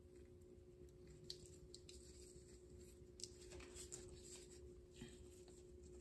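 Faint, intermittent scratching: a piece of twine scraping grout out of narrow grooves in a mosaic.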